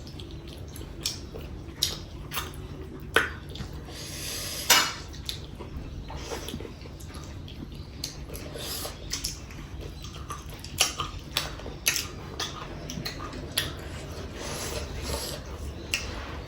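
Dishes and eating utensils clinking and tapping at irregular intervals during a meal, with a few sharper clinks among softer taps.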